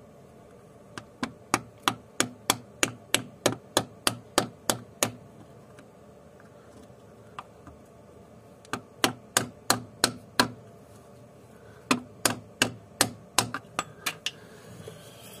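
Rubber mallet striking a homemade seal driver, tapping a new driveshaft oil seal into a gearbox case. The blows come in three runs of quick knocks, about three a second, with short pauses between.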